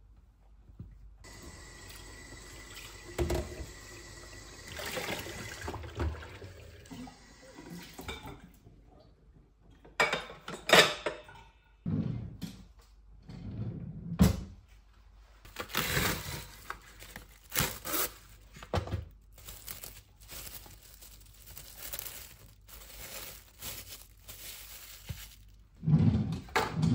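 Water running from a tap for several seconds, then plastic cling film being pulled from its box, torn off and crinkled around balls of cookie dough: a series of short, separate rustles and crackles, the loudest a few near the middle and one near the end.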